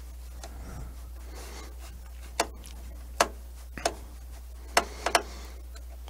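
Sharp, scattered clicks, about five in the second half, of a gas furnace's air pressure switch and its fastenings being handled and secured back into place on the induction motor housing.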